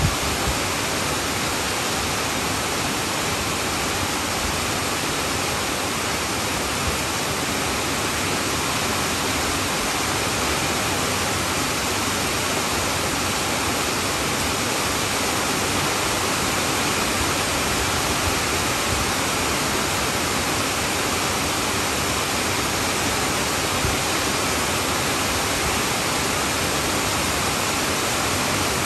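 Heavy rain falling steadily on a tin roof, a dense even hiss that holds at one level throughout.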